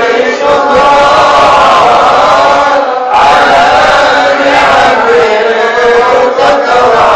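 A large group of men chanting a devotional Islamic recitation together, many voices in unison on a slow melodic line, with a short break about three seconds in.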